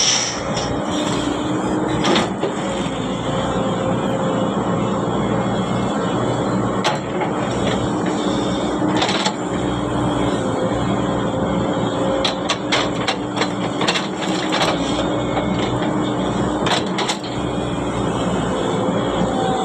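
Excavator's diesel engine and hydraulics running steadily under load, with a held whine, and sharp knocks and clanks every few seconds, clustered about two-thirds of the way through, typical of the bucket and material striking steel.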